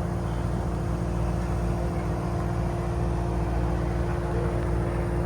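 Diesel engine of a Cat 289D compact track loader running steadily while the machine is maneuvered onto a trailer, with a few steady whining tones above the engine note.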